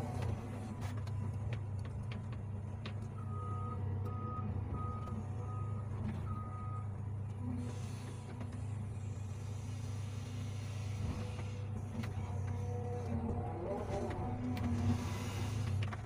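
Hydraulic excavator's diesel engine running steadily as the bucket trims a dirt slope. A string of five short high beeps sounds about three to seven seconds in.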